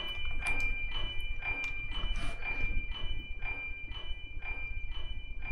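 Typing on a computer keyboard: uneven key clicks, about two or three a second, over a faint steady high-pitched whine.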